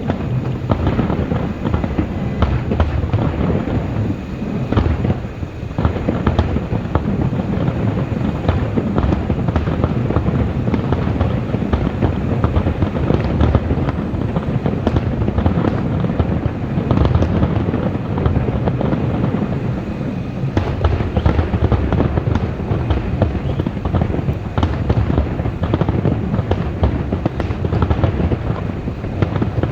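Fireworks display: a dense, continuous barrage of bangs and crackling, with a brief lull about five seconds in.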